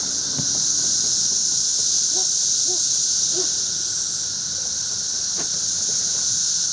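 Chorus of cicadas in a tree: a continuous, steady high-pitched droning buzz.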